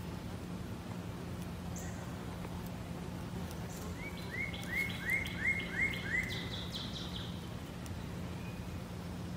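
A bird calling a quick run of about six short rising chirps about midway through, over a steady low hum.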